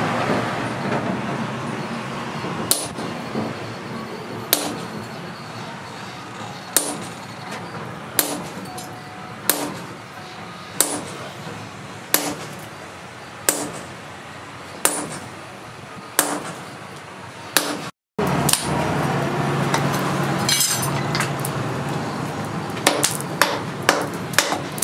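Sledgehammer blows on red-hot steel held in tongs on a steel-post anvil: hand forging with a striker, one ringing strike about every one and a half seconds. After a cut near 18 seconds, quicker, lighter clinks follow.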